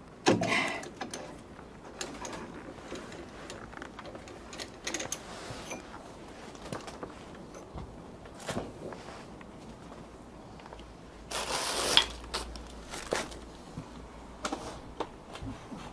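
Scattered clicks and knocks of hand tools and brake parts being handled during a brake job. About three-quarters of the way through comes a short scraping rustle that ends in a sharp knock.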